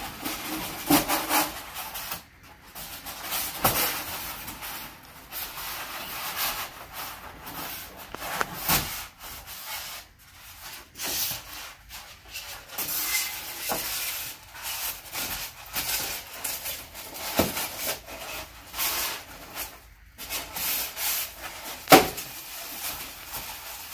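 A thin styrofoam insulation sheet being bent and pushed into an aluminum garage door panel, rubbing and scraping against the door's metal frame in uneven strokes, with scattered clicks and one sharp knock near the end.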